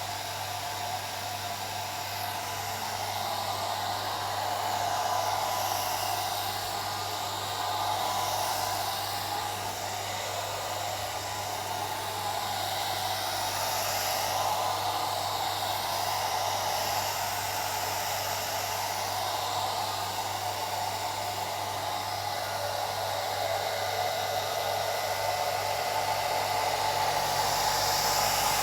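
Old hair dryer running continuously: a steady airy whoosh of its motor and fan with a low hum underneath, swelling and easing slightly in loudness.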